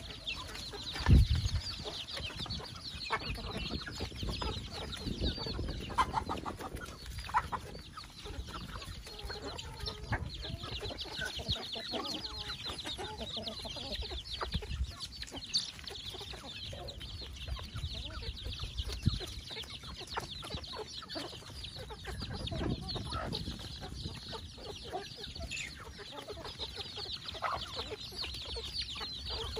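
A flock of chickens feeding: many chicks peeping in a constant high chorus, with hens clucking among them. A single low thump about a second in is the loudest sound.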